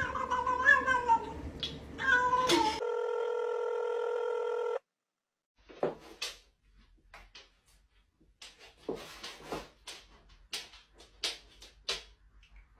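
Cat meowing in drawn-out calls that bend up and down, then a steady electronic tone for about two seconds that cuts off suddenly. Scattered light clicks and taps follow.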